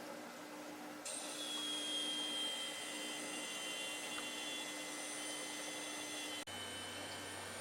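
Youngnam aquarium air blower running with a steady mechanical noise and a thin, high whistle, the strange whistling that came on together with a drop in the blower's air output. About a second in the sound grows louder and the whistling tones come in; near the end there is a sudden break, after which a low hum joins.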